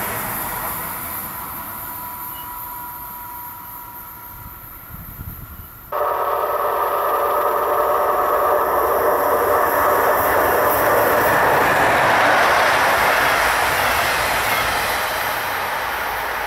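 A train passing on the line. A fading pass dies away, then about six seconds in a louder one starts abruptly, with several steady tones over the wheel-and-rail noise; it is loudest around two thirds of the way through and slowly fades.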